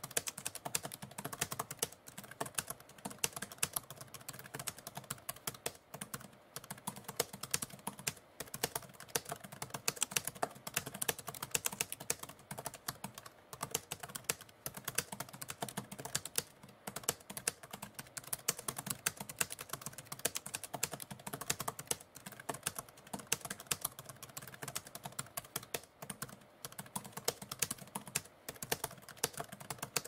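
Typewriter keys striking in a quick, irregular run of keystrokes, several a second, with brief pauses every few seconds.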